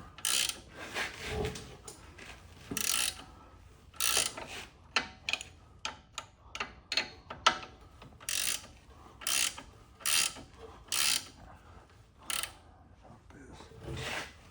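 Hand socket ratchet clicking in short, irregular strokes, a dozen or more, as a bolt is worked loose, most likely a lower shock bolt.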